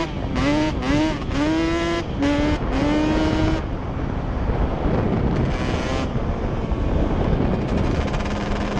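Yamaha Banshee's twin-cylinder two-stroke engine revving hard under riding load, its pitch climbing and dropping back several times in quick succession as it runs through the gears. After that it settles into steadier running, mixed with rushing noise.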